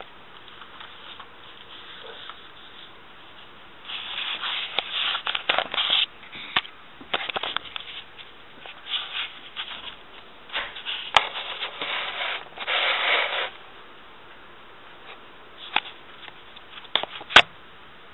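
Handling noise from a hand-held camera being carried: irregular bursts of rubbing and scraping against the microphone, with two sharp clicks, one about 11 seconds in and a louder one near the end.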